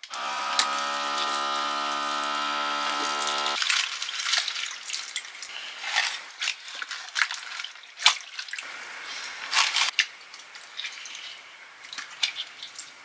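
Small electric pump of a countertop water dispenser whirring at a steady pitch for about three and a half seconds as water runs into a stainless steel sink bowl. Then water dripping and splashing and the clicks and rustles of napa cabbage leaves being rinsed and handled.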